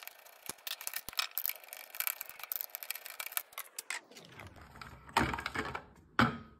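Small screwdriver turning out a screw in a plastic car phone case: a dense run of small clicks and scrapes for about four seconds. Then two louder plastic knocks, about five and six seconds in, as the battery pack is handled.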